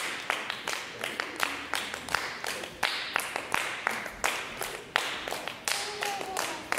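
Sharp percussive claps, about three or four a second in an uneven rhythm, each with a short hissy tail.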